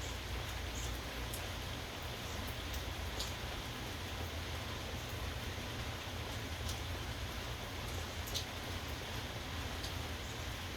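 Steady rain falling, a constant hiss with scattered sharp drips, over a low continuous rumble.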